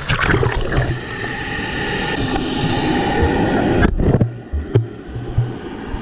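Pool water sloshing and gurgling close to the microphone, with a sharp knock about four seconds in.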